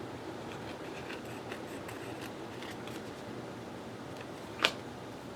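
Paper and small craft tools being handled: faint scattered rustles and light ticks, with one sharp click about four and a half seconds in.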